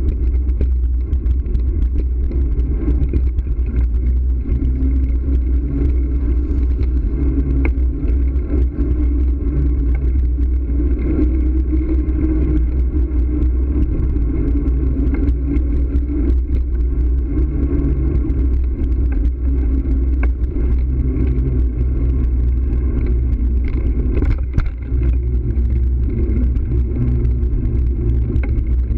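Steady low rumble of wind and road vibration picked up by a bicycle-mounted camera while riding over paved streets, with a few faint clicks.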